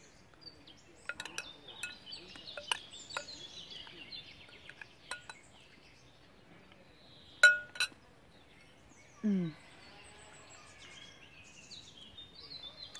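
Metal spoon clinking against a porcelain bowl while eating: a scatter of light clicks, with one loud ringing clink about halfway through and a second shortly after. Birds chirp faintly in the background.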